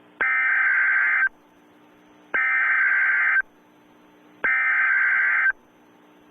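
Emergency Alert System SAME header: three bursts of buzzy digital data tones, each about a second long with about a second's gap, with a faint steady hum between them. The bursts are the coded header that opens an alert, carrying its event type, area and times.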